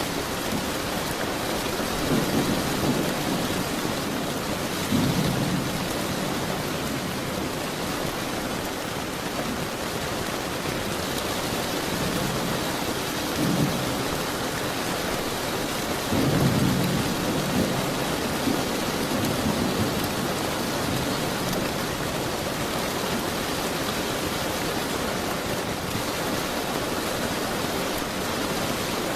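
Steady rain falling, with low rolls of thunder rumbling several times. The longest roll runs from about sixteen to twenty seconds in.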